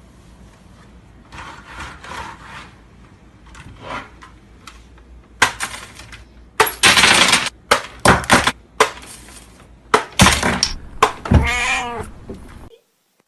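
Several loud clattering crashes, then one cat meow a little before the end.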